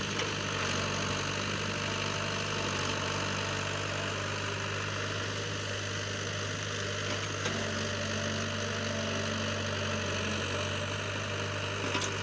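An engine idling steadily, with a few faint clicks.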